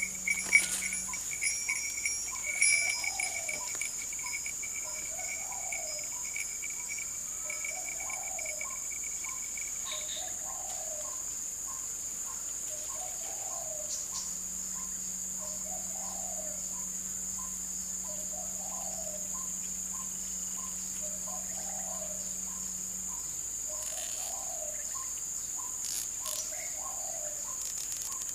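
Steady high-pitched drone of insects, with a soft, low repeated call about every two and a half seconds and quicker faint ticks beneath it. A few sharp rustles and knocks come in the first few seconds.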